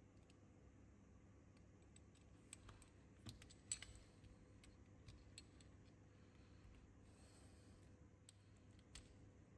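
Faint, scattered clicks and taps of hard radio-control model chassis parts being handled and fitted together by hand, the loudest a sharp click a little under four seconds in.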